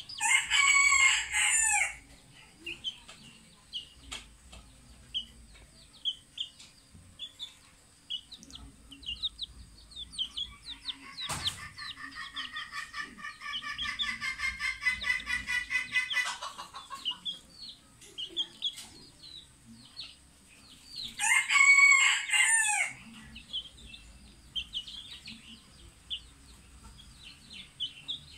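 A rooster crows twice, loudly, once near the start and again about twenty seconds in. Between the crows, chickens cluck and a chick peeps in short high chirps. Midway, a run of rapid, pulsing fowl calls lasts several seconds.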